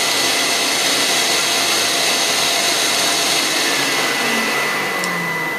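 CNC router spindle running at a steady high whine while its bit cuts a profile through a wooden board, with the hiss of the cut and chips.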